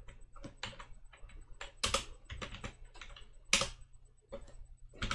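Typing on a computer keyboard: irregular key clicks, with two louder keystrokes about two seconds and three and a half seconds in.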